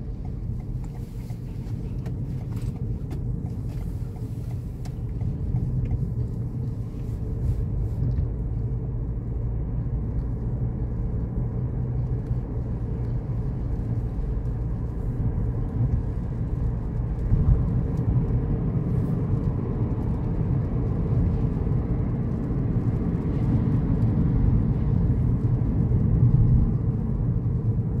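Steady low rumble of a car's engine and tyres, heard from inside the cabin while driving, slowly growing louder.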